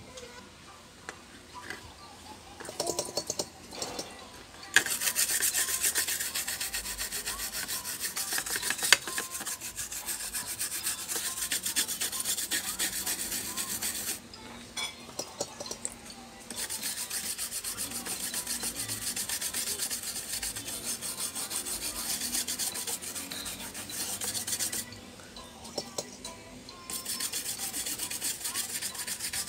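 A brush scrubbing the bare back of a graphics card's circuit board in fast back-and-forth strokes. The scrubbing starts about five seconds in and stops twice for a couple of seconds.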